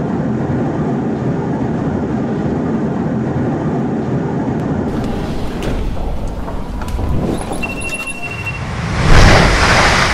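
Steady low rumble of an airliner cabin in flight, giving way to station noise with a few clicks and a short electronic beep, then the loud rush of a London Underground train sweeping past the platform from about nine seconds in.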